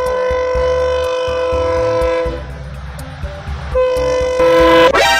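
Train horn sounding two long blasts: the first lasts about two and a half seconds and the second, after a pause of over a second, is shorter. A quick upward-sweeping sound comes just before the end.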